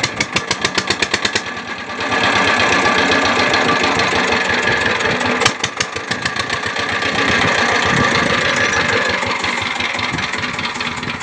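Single-cylinder Peter-type diesel engine running just after starting, first chugging with even knocks about eight a second, then about two seconds in turning to a louder, steadier run.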